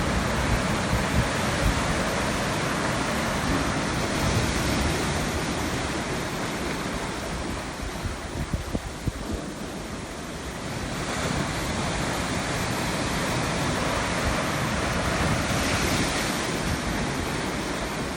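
Ocean surf breaking on the shore: waves crash and wash in continuously, easing off about halfway through, then a fresh wave builds and breaks and another follows near the end. Wind rumbles on the microphone underneath.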